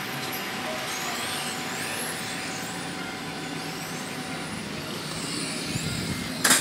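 Radio-controlled model cars racing on tarmac, their high motor whine rising and falling as they speed up and slow down. Near the end comes a quick cluster of loud, sharp knocks.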